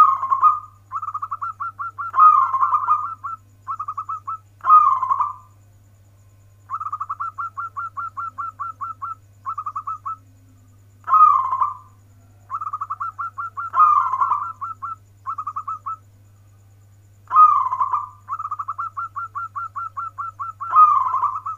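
A zebra dove (perkutut) singing its cooing song: repeated bouts of quick staccato coo notes, about a second or two each, broken several times by louder, fuller coos. A steady low hum runs underneath.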